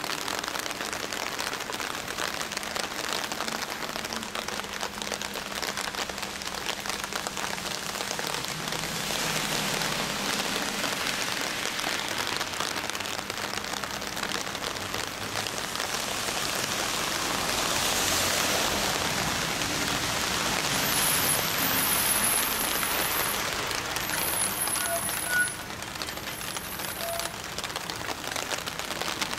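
Steady hiss of rain falling on wet pavement, swelling for a few seconds around the middle, with one short knock near the end.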